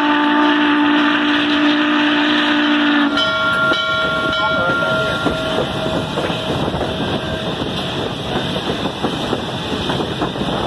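Norfolk & Western 611's steam whistle sounding a long chime blast, heard from right in front of the locomotive, that cuts off about three seconds in, followed by a shorter higher tone. Then the steady rumble and clatter of the 4-8-4 steam locomotive and train rolling along the rails.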